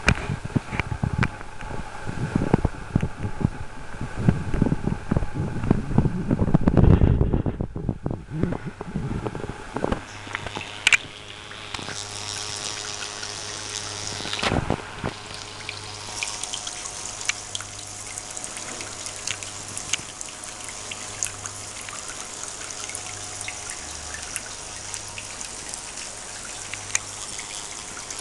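Small running water feature trickling steadily, with a fine high hiss from about ten seconds in. Before that, irregular low rumbling and knocks, loudest about seven seconds in, lie over it.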